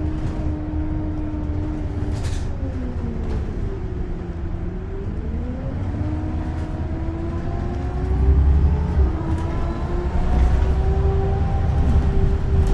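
Scania L94UB single-decker bus under way: a steady low engine rumble with a whine that slides down in pitch and then climbs again about four to five seconds in. The rumble grows heavier near the end.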